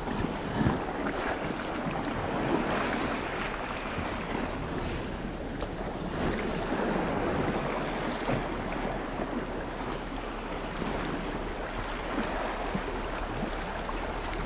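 Lake waves washing steadily against shoreline rocks, with wind rumbling on the microphone.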